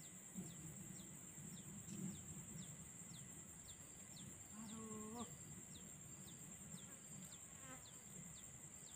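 Faint open-air ambience: a steady high insect drone with short high chirps repeating about twice a second, and one brief held low call about five seconds in.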